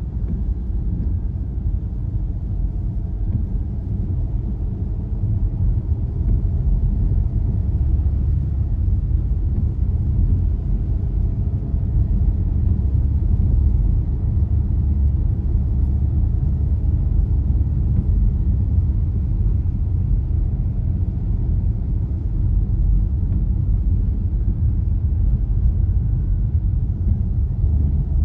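A car driving along: steady low rumble of road and engine noise that holds even throughout.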